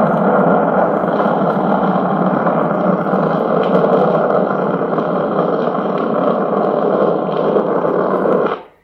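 A recorded sound effect played back from a vinyl sound-effects record: a dense, steady noise that fades out quickly near the end.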